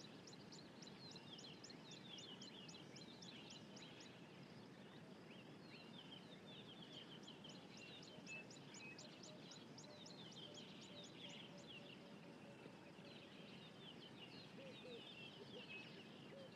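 Faint outdoor bird chorus: many small birds chirping and twittering, with runs of quick high chirps several a second, over a soft steady background hiss.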